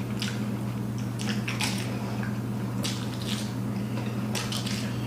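Fuchka (pani puri) being eaten fast: crisp shells crunching and wet chewing, in irregular crunches a few times a second, over a steady low hum.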